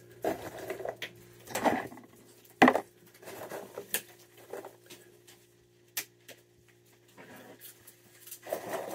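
Irregular light clinks, taps and clatter of small objects being handled on a hard surface, over a faint steady hum.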